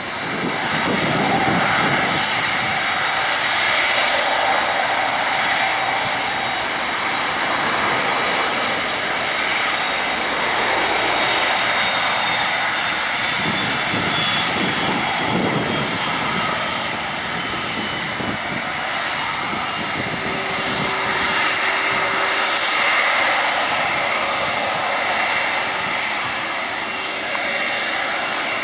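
Boeing 767-300ER's twin turbofan engines running at low taxi power as the airliner taxis and turns: a steady high whine over a broad jet rush, with low rumbling swells now and then.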